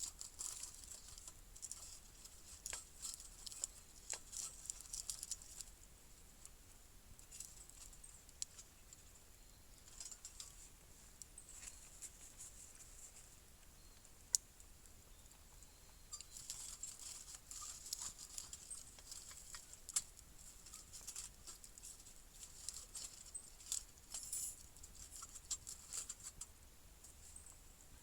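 Light, irregular crackling and ticking comes in two stretches, with a few sharper single clicks between them.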